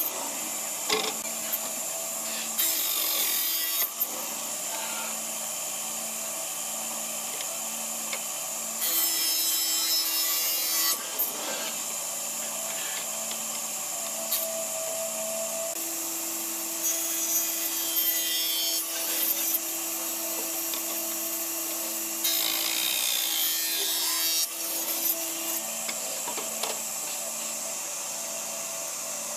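Sliding table saw running with a steady motor hum, its circular blade cutting through wooden boards several times; each cut is a louder, hissing stretch of about two seconds.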